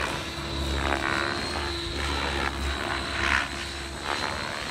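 Radio-controlled helicopter flying overhead, its rotors whirring with a steady high whine, swelling louder twice as the rotor load changes. Its flybarless controller's automatic rescue mode has just been triggered to level it and pull it up.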